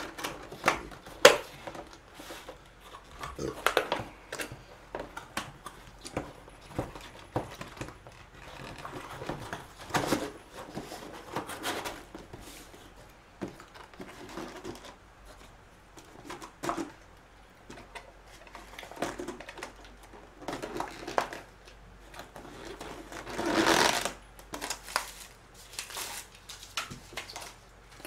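Plastic takeout food container and lid being handled and packed into a cardboard box: a string of clicks, snaps and rustles, with a longer, louder rustle a little before the end.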